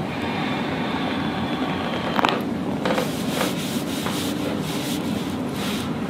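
Hands rubbing back and forth over a cotton T-shirt on a patient's upper back, with a single sharp click about two seconds in. In the second half the rubbing turns into a steady run of brushing strokes, about three a second.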